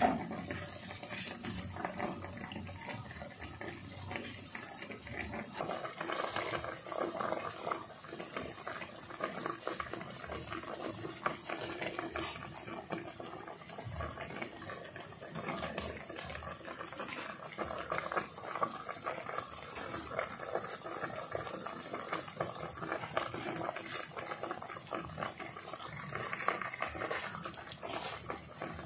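Pot of sinigang broth with water spinach boiling uncovered on the stove, with a steady crackle of small bubbles popping.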